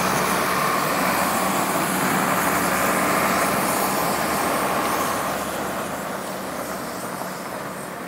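Road traffic driving by on a slushy, snow-covered street: the hiss of tyres with a steady engine hum, fading off about five seconds in.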